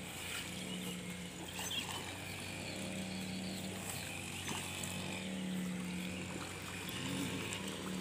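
A motor running with a steady low hum that swells and fades a little, under faint splashing from a hooked fish being played at the surface near the bank.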